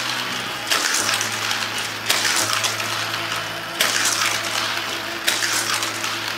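Battery-powered Hot Wheels track booster motors hum steadily. A sharp whirring whoosh comes each time the die-cast car is fired through a booster, about every one and a half seconds, four times.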